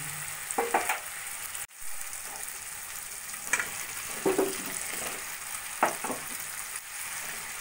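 Hot oil and masala sizzling in a kadai as fried potato and mati aloo chunks go in, with a few short scrapes and clinks of a steel spatula.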